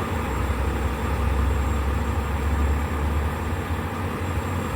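Steady low rumble of vehicle engines running at idle.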